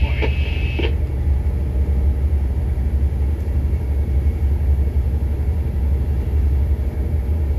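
Tugboat diesel engine running with a steady, deep rumble while it handles a container barge. A last snatch of VHF radio voice fades out within the first second.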